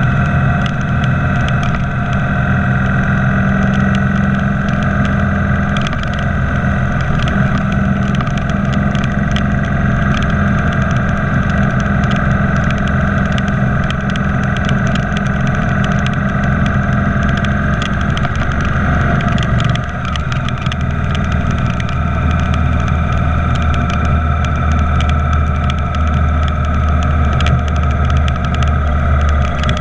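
Motorcycle engine running at cruising speed with wind and road noise, heard from the rider's seat behind the windscreen. About two-thirds of the way through the loudness dips briefly and the engine note changes.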